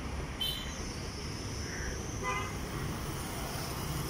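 Road traffic rumbling steadily, with two short vehicle horn toots: a high one about half a second in and a lower one a little after two seconds.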